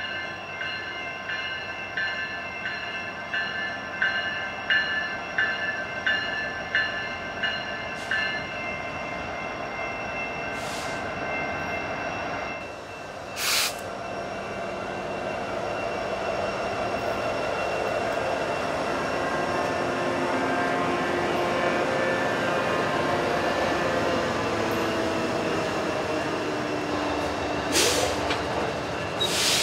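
Grade-crossing bells ringing about twice a second, stopping about eight seconds in, over the running of slow-moving BNSF diesel locomotives. After a cut about halfway through, the locomotives' engines drone louder as they pass at walking pace, with a few sharp clacks from the wheels near the end.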